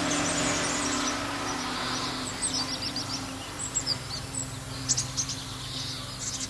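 Small songbirds chirping and tweeting in short bursts over a steady low engine hum. A broad rushing noise is strongest in the first two seconds and then eases.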